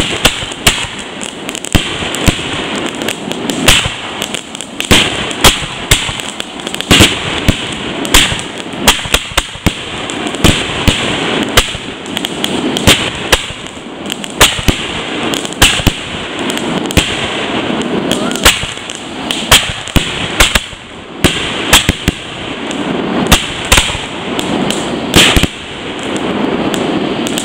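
Consumer fireworks going off in a long barrage: a rapid string of sharp bangs, several a second at times, over a continuous crackling hiss.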